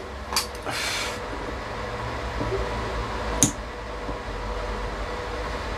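Handheld-probe battery spot welder firing onto nickel strip on a lithium-ion cell: two sharp snaps about three seconds apart over a steady low hum. The power setting was too low for a good weld, by the welder's own account.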